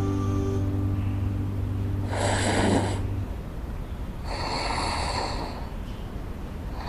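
A young woman snoring in her sleep, with two long snores about two seconds apart and a third starting near the end. Soft music fades out during the first snore.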